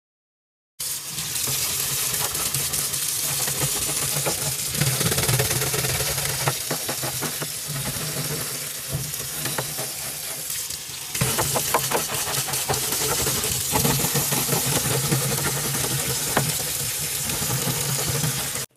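Hand scrub brush scrubbing a grimy surface in quick strokes: a dense, scratchy rubbing over a low steady hum. It starts abruptly about a second in and cuts off suddenly near the end.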